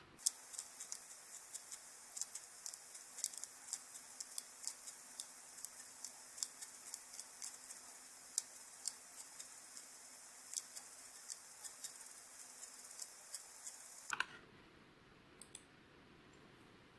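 Computer keyboard and mouse clicking in quick, irregular runs of a few clicks a second. The clicking stops about fourteen seconds in.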